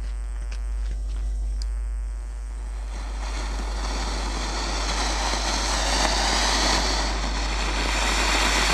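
Two small anar (flower-pot) firework fountains hissing as they spray sparks. The hiss starts about three seconds in and grows louder and fuller, with both fountains burning together near the end.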